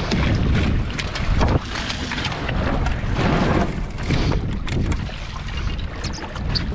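Wind buffeting the boat-mounted camera's microphone over water rushing along a small catamaran's hull, with scattered knocks as the sailor moves across the boat during a tack.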